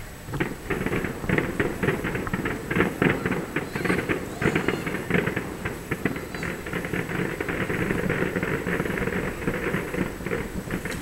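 A dense barrage of distant fireworks bursts: sharp bangs and crackles following one another several times a second, starting about half a second in.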